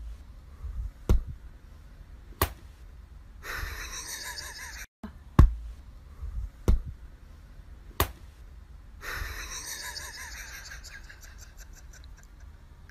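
About five sharp knocks spaced a little over a second apart, with two stretches of breathy hissing noise, the longer one in the second half.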